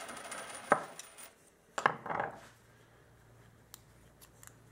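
Quarters clinking and clicking against a wooden workbench as they are handled: one sharp click about a second in, a short run of clicks around two seconds, then a few faint ticks.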